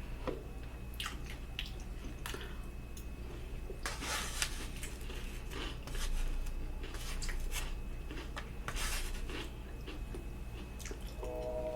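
Close-up eating sounds of a person chewing spaghetti: wet, squishy mouth clicks and smacks, with a few louder noisy bursts of chewing or slurping. Near the end a steady pitched tone comes in.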